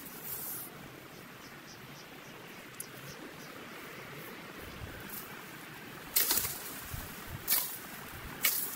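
Rustling of grass and weeds against a steady faint outdoor hiss. Three louder, short swishes come about a second apart near the end, like steps brushing through the vegetation.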